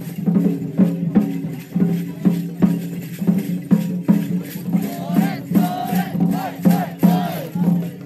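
Festival taiko drum beaten in a steady quick rhythm, a little over two strokes a second, accompanying a shishimai lion dance. Higher wavering tones sound over the drumming about five seconds in, for a couple of seconds.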